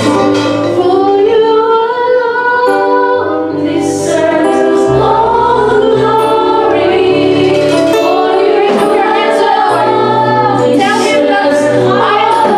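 A woman sings a gospel worship song through a microphone, backed by a live band with electric bass holding low notes that change every second or two.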